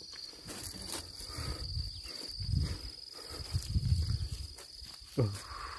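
Insects chirring outdoors: a steady, high-pitched buzz that never breaks. Under it comes low rumbling, loudest for about two seconds in the middle, with a few soft rustles and clicks.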